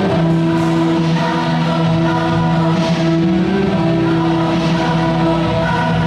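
Music with long, steady held notes, choir-like in texture.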